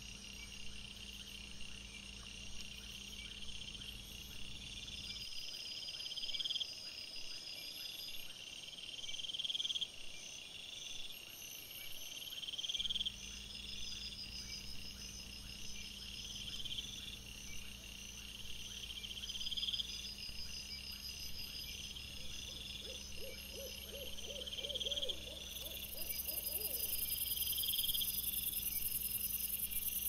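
Night insects, crickets, chirping in a regular repeating pattern, over a steady faint hum. About three-quarters of the way through comes a short run of quick, lower-pitched calls.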